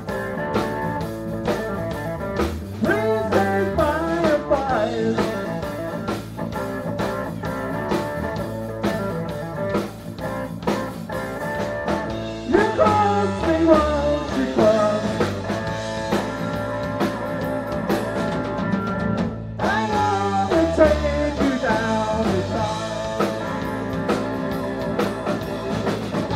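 Live blues-rock band playing: electric guitar, drum kit and keyboard, with a steady drum beat and a lead line that bends and wavers in pitch in several phrases.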